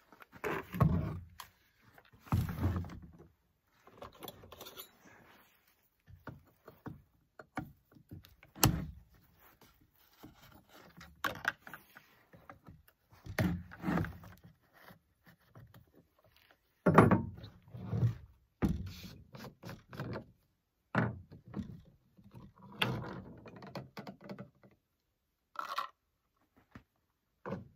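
Irregular thunks and knocks of gear being handled on a pickup truck's tailgate: a forestry helmet, a Stihl chainsaw and a plastic gas can are moved, opened and fitted with a pour spout while the saw is readied for refuelling. The saw is not running.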